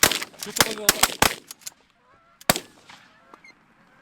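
A volley of shotgun blasts from several hunters, about seven shots in quick succession in the first second and a half and one more about two and a half seconds in, with Canada geese honking.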